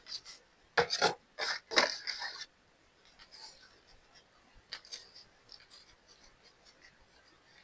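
Handling noise from small items on a work surface: a quick run of short scraping and rubbing strokes about a second in, then faint light clicks and taps.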